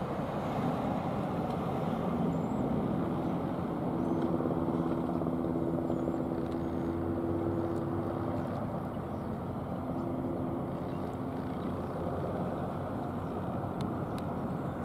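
Black Hawk-type helicopter flying past: a steady rotor and engine drone, with a low hum that grows stronger in the middle and eases off again.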